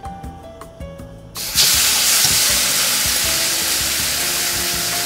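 Marinated beef strips frying in a hot pan: a loud sizzle starts suddenly about a second and a half in and keeps going steadily.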